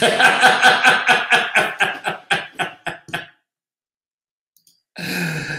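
A man laughing heartily, a quick run of pulses that fades out about three seconds in.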